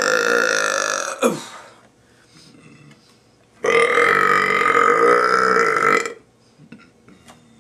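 A young man burping loudly and at length: one long burp breaks off about a second in, and a second one of about two and a half seconds starts just past the middle. There are a few faint clicks in the quiet between and after.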